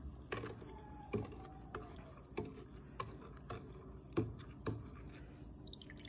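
Faint, sharp clicks and taps, roughly one or two a second, as a hand moves in a plastic tub of water.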